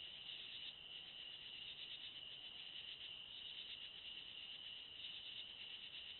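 Steady, dense chorus of night insects trilling continuously.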